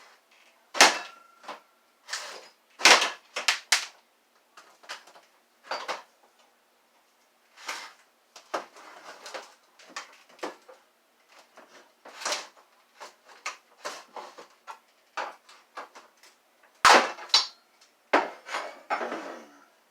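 A small pry bar working at a plastic Kenmore vacuum wand: irregular sharp clanks, clicks and scrapes of metal against hard plastic. The loudest knocks come about a second in, around three seconds and near seventeen seconds.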